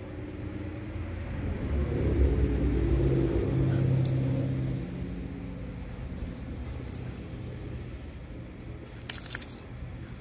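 A motor vehicle's engine hum swells, holds for a couple of seconds and fades away as it passes. Near the end, a brief metallic jingle from the dog's collar tags.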